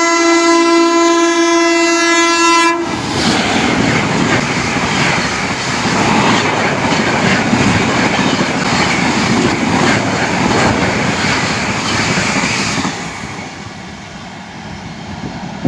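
Tejas Rajdhani Express train passing through a station at speed. Its locomotive horn sounds one long steady blast for about the first three seconds, then the loud rush and wheel clatter of the coaches going by, fading away about two seconds before the end.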